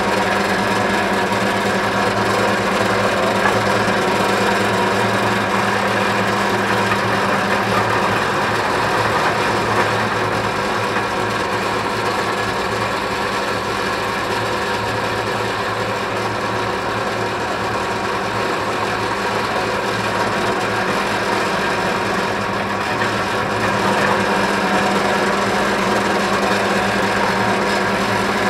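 Benchtop drill press running steadily while it bores 12 mm holes through a wooden board for threaded inserts.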